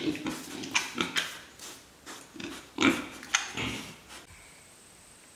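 Piglets calling in short, irregular grunts and squeals, the loudest about three seconds in; the calls stop about four seconds in.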